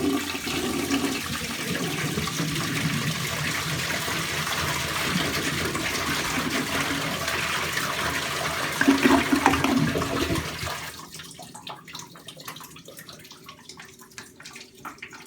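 1989 Universal-Rundle toilet flushing: a steady rush of water for about ten seconds, swelling into a loud gurgle as the bowl siphons out. The sound then drops to the quieter trickle of the tank and bowl refilling.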